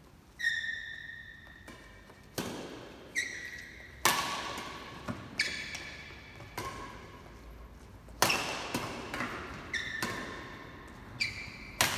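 Badminton rally: repeated sharp cracks of rackets striking the shuttlecock, about one a second, each ringing on in the hall's echo, mixed with short high squeaks of shoes on the court floor.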